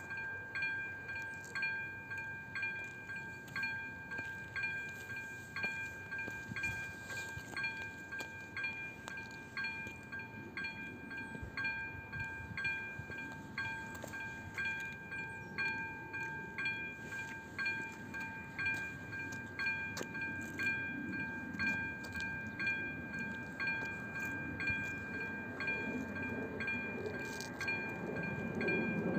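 Electronic warning bell of an AŽD 97 level crossing ringing steadily, a ding a little faster than once a second, signalling that a train is approaching. A low rumble grows toward the end as the train nears.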